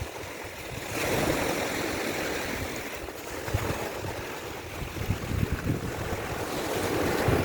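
Sea waves washing onto a beach, swelling about a second in and again near the end, with wind buffeting the microphone in low irregular thumps.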